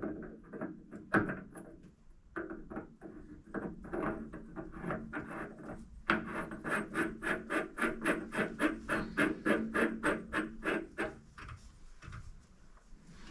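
Steel test piece being screwed by hand into freshly cut internal threads in a steel nut: metal threads rubbing and scraping in repeated short strokes, irregular at first, then an even rhythm of about three a second that stops about eleven seconds in. The thread is still cut slightly tight, so the test piece catches partway in.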